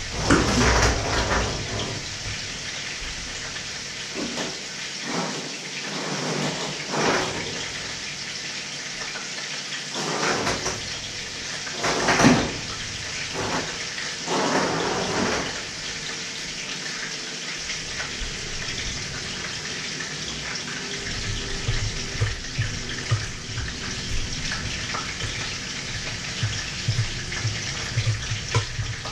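Kitchen work sounds: a steady hiss with scattered knocks and clinks of metal bowls and utensils, the loudest about twelve seconds in. Over the last several seconds a quick, irregular low scraping as a spoon is worked through a metal bowl of egg mixture.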